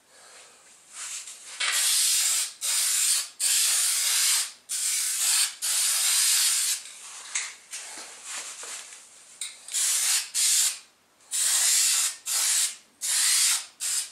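Aerosol spray-paint can hissing in a string of about a dozen short bursts, each half a second to a second long, as paint is sprayed onto a metal grille.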